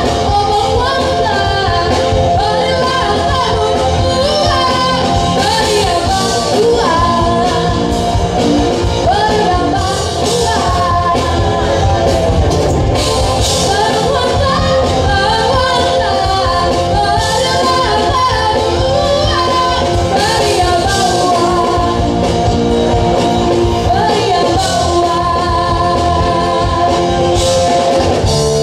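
Live rock band playing loud and steady: a woman singing into a microphone over electric bass guitar and drums.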